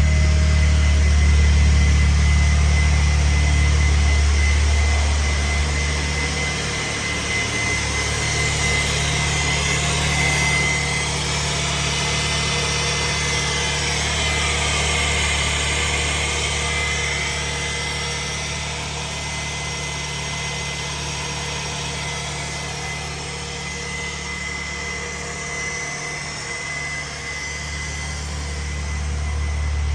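The 2002 Volkswagen Beetle's 2.0-litre four-cylinder petrol engine idling steadily just after starting, with a thin high whine over the idle.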